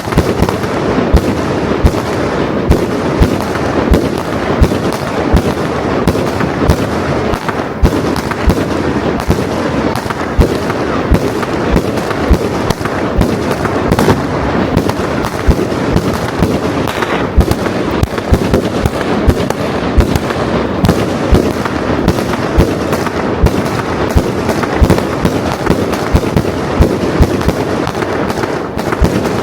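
A dense, unbroken barrage of consumer fireworks: many sharp bangs thick with crackling, several to the second, with no let-up.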